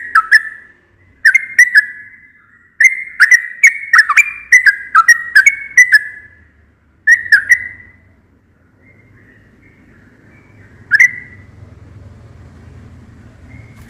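Yellow-vented bulbul singing: bursts of quick, bubbly, liquid whistled notes in short phrases, then a pause with a single note about two-thirds of the way through.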